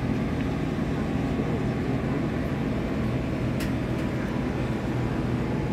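Steady low drone of parked airliners and ground-support machinery on an airport apron, an even hum without change.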